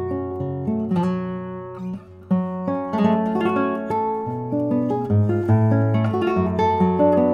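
Solo classical guitar playing a baroque piece transcribed for guitar, a moving bass line under plucked melody notes, with a brief break in the notes about two seconds in.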